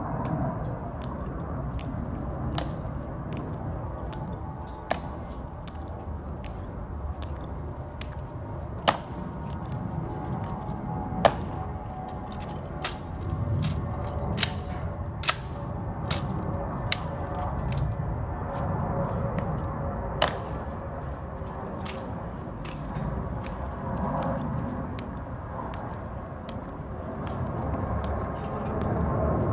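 Sharp, irregular clicks and cracks from Tomb Guard sentinels' metal-plated heels striking the stone and from their rifles being handled as they march and halt. The clicks come over a low steady background, with the loudest strikes about a third and a half of the way through.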